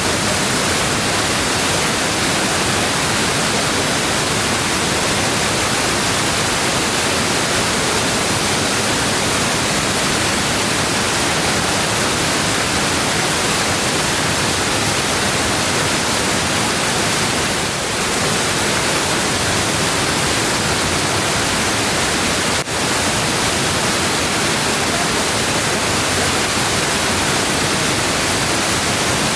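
Waterfall: a loud, steady, unbroken rush of falling water, dipping briefly twice in the second half.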